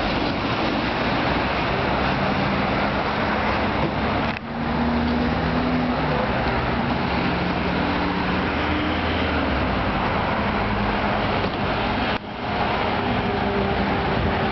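AKSM-743 articulated low-floor electric tram at close range, its electrical equipment humming in shifting low tones over steady street noise. The sound cuts out briefly twice.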